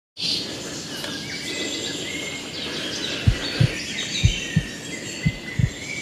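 Birds chirping and singing. From about three seconds in, a low double thump like a heartbeat joins them, one pair about every second.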